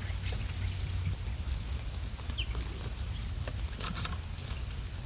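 Footsteps patter on wet ground over a steady low rumble of wind on the microphone, with a few short, high bird chirps.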